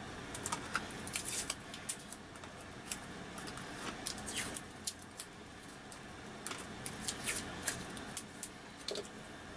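Masking tape being pulled off the roll and torn into short strips, in a few brief rasping rips, among light clicks and taps of fingers pressing it onto the instrument cluster's plastic face.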